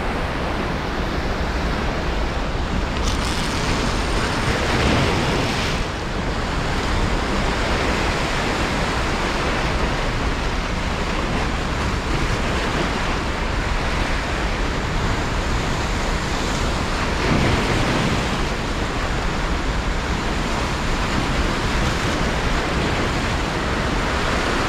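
Turbulent whitewater rushing out below a dam spillway: a steady, unbroken rush of churning water.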